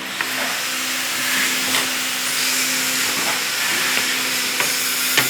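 Homemade semi-automatic stone-cutting saw cutting through stone: a steady motor hum under a loud hiss from the blade in the cut, which swells as the cut starts, with a few sharp ticks.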